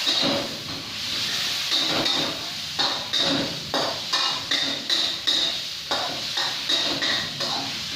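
Chicken stir-frying and sizzling in a hot pan after a splash of chicken stock, with a steady hiss and a spatula scraping and tossing about twice a second.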